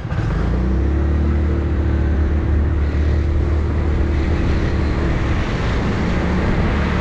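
Yamaha R6 sport bike's inline-four engine with an Akrapovic exhaust, opening up at the start and then holding a steady note under way, over wind and road noise. The pitch rises a little near the end.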